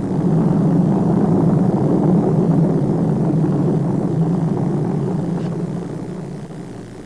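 Saturn V moon rocket lifting off: a deep, steady rumble of its engines that builds over the first second and fades away over the last two seconds.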